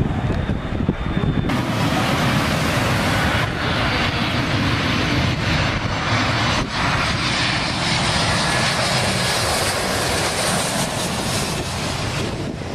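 Jet airliner's engines passing low overhead on landing approach: a loud, steady rush of engine noise that sets in about a second and a half in.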